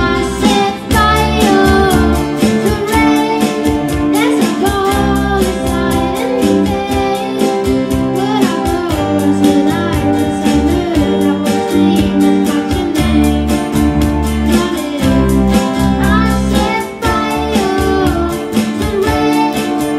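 Live school pop band: children singing with guitar, bass and a steady beat.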